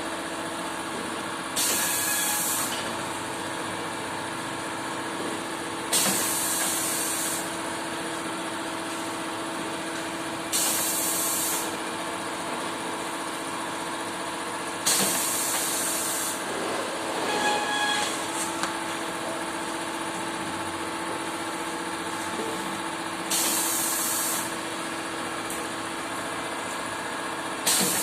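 Semi-automatic screen-printing machine running with a steady hum, interrupted about every four to five seconds by a short, sharp hiss, six times in all, with some clattering near the middle.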